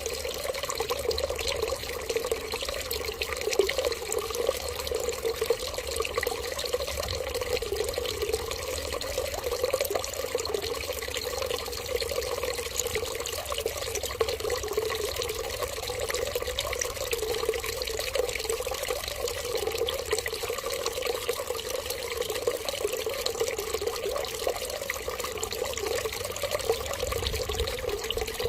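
Water running in a steady, unbroken stream, with no change in flow.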